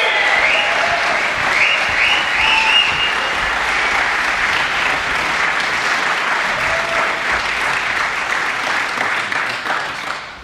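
Audience applauding, with a few higher calls in the first seconds; the applause dies away near the end.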